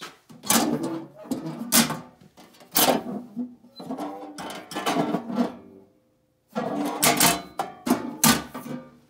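Sheet-metal electrical breaker-panel door being opened and handled, with repeated loud clanks and rattles and a short pause about six seconds in.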